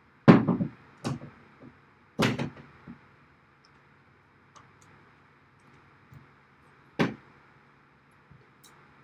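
Sharp knocks and clunks of hardware being handled and fitted into a rack case: three loud knocks in the first two and a half seconds, a few light taps, then another loud knock about seven seconds in.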